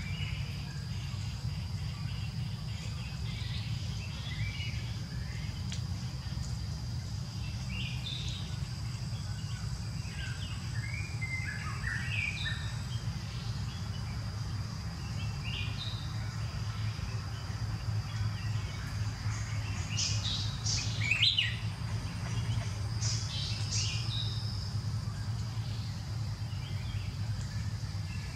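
Small birds chirping on and off, with a louder flurry of calls about twenty seconds in, over a steady high hum and a low rumble.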